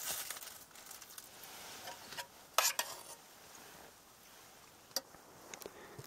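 Quiet rustling with a few short clatters and clicks of someone handling food and utensils in a car's cabin, the loudest clatter about two and a half seconds in.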